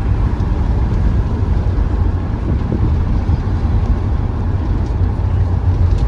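Steady, loud low rumble of a moving vehicle, with no breaks or separate events.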